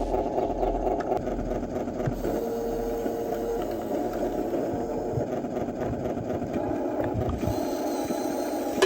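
Small electric motor and gearbox of a radio-controlled toy truck running steadily.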